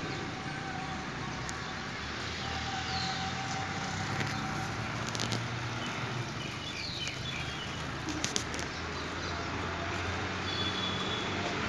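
Outdoor ambience: a steady low hum like a distant engine or traffic, with a few short bird chirps and a couple of sharp clicks. Near the end the hum grows louder.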